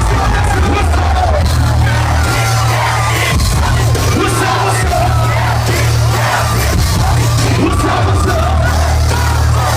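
Live hip-hop concert heard through a phone microphone: heavy, booming bass beat from the PA with a rapper's vocals and a crowd yelling and singing along.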